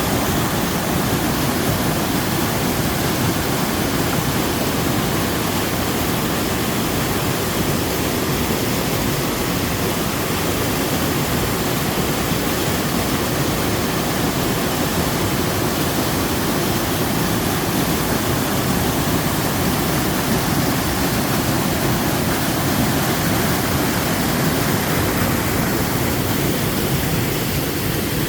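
Small waterfall pouring into a mountain stream, a steady full rush of falling water.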